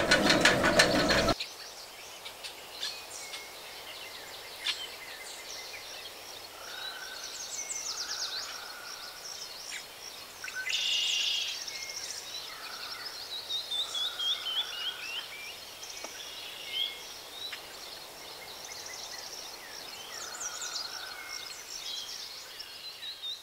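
Songbirds singing and chirping, with several separate calls that include twice a run of short notes stepping down in pitch, over a faint steady hiss.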